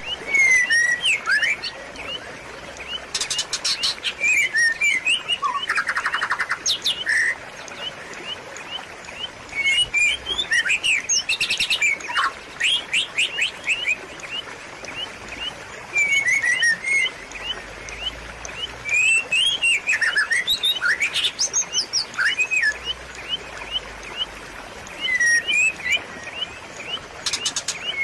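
Small songbirds chirping steadily, with many short sweeping chirps and several quick rapid-fire trills, over a steady background hiss of trickling water.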